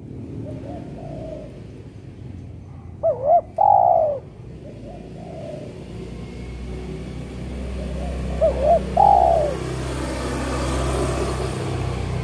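Spotted doves cooing: two loud phrases of two short rising notes and a longer lower coo, about three and eight seconds in, with fainter coos answering in between. A low road-traffic rumble swells through the second half.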